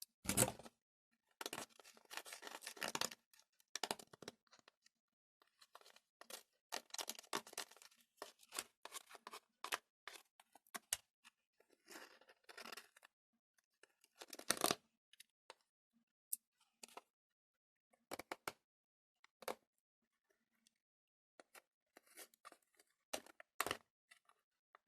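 Thin plastic candy tray crinkling and clicking in irregular bursts as set jelly is pried out of its cups, with short quiet pauses between.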